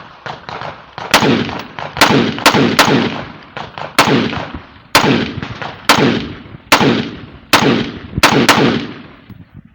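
Rifle shots at an outdoor range: a string of about eleven sharp cracks, roughly one a second with a few closer pairs, each trailing off in a long echo. Fainter, more distant shots come in the first second, and the firing stops near the end.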